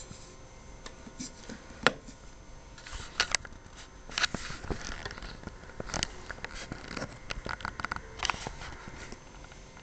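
Irregular clicks, taps and short scraping and rustling noises from handling the filming setup, over a faint steady electrical hum.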